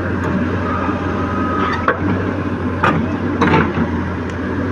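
Caterpillar 312 excavator's diesel engine running steadily with a low hum, with three sharp clanks in the second half.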